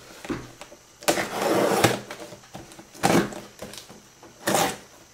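Rustling and scraping from a plastic-wrapped retail box being handled: one longer rub about a second in, then two shorter ones.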